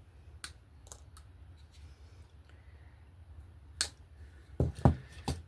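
Small sharp clicks and taps of hands pinning moss down with U-shaped wire hairpins: a few scattered clicks, then a quick cluster of heavier knocks near the end.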